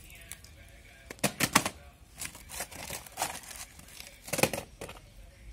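A series of sharp clicks and knocks: a quick cluster about a second in, then single ones every half second or so.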